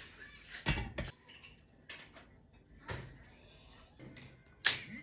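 Dishes and cutlery knocking and clattering a few times, with the loudest knock near the end.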